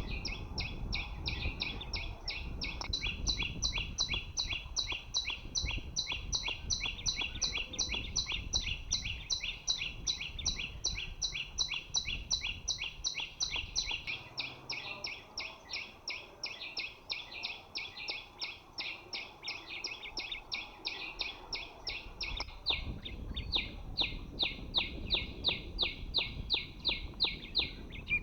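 A small songbird's call: a fast, evenly spaced series of short, high chip notes repeated without a break, over a low background rumble.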